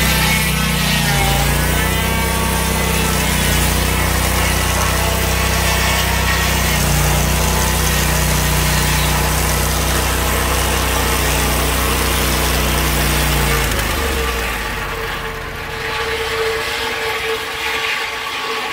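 Petrol engine of a Lucas portable sawmill running steadily, then cutting out about 14 s in, leaving a quieter sound with a steady higher whine.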